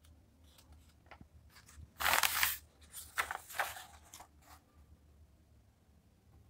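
Paper pages of a printed question-paper booklet rustling as a page is turned, with a louder rustle about two seconds in and a few shorter, fainter crinkles after it.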